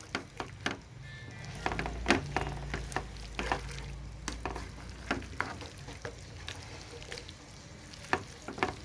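A spatula stirring and scraping chopped chicken, sausage and fish cake through a tomato-and-onion mix in a frying pan, with irregular clicks and taps against the pan over a light sizzle. A low hum comes in about a second and a half in and fades a few seconds later.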